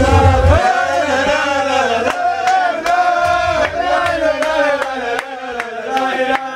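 A crowd of men singing a melody together in unison, loud and lively, with a few sharp clicks through the middle. A deep bass beat drops out about half a second in.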